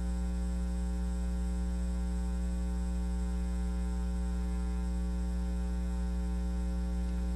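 Steady electrical mains hum on the audio line, buzzy with many overtones and unchanging.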